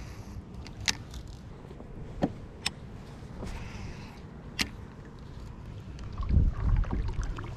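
Kayak on the water with a few sharp knocks against its plastic hull, four in all, spread over the first five seconds. Wind buffets the microphone about six seconds in.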